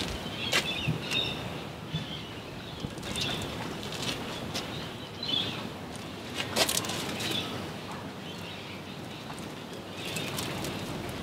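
Birds chirping and calling at intervals, with a few scattered sharp clicks, the loudest about six and a half seconds in.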